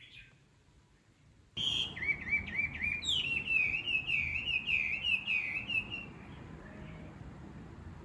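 A songbird singing a loud, fast run of repeated down-slurred notes that starts abruptly about a second and a half in, switches to a new repeated phrase about a second later and fades out about six seconds in, with a few faint notes near the end.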